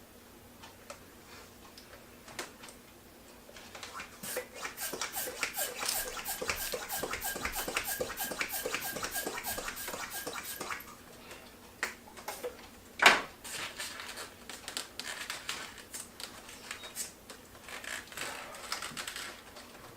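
Latex twisty balloons being handled and twisted: quick runs of rubbery squeaks and creaks. Partway through there is one sharp, loud snap-like click.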